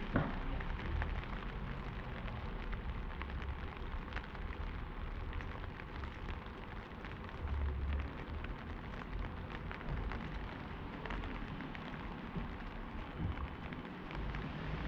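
Light rain and dripping on wet pavement: a steady hiss scattered with many small irregular taps, over a low rumble.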